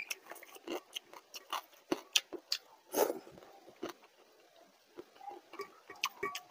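Close-up eating sounds of soaked rice in water (panta bhat) eaten by hand: wet mouth smacks and chewing, with fingers stirring the rice in a steel bowl. It is a run of short, irregular clicks and squelches that goes quieter for a moment about four seconds in.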